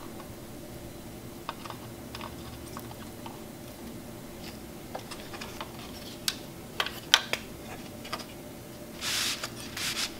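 Small scattered clicks and taps of soldering work on a synth circuit board. The board is then lifted and turned over, with a few sharp knocks about two-thirds of the way through and a brushing scrape near the end as it is laid down.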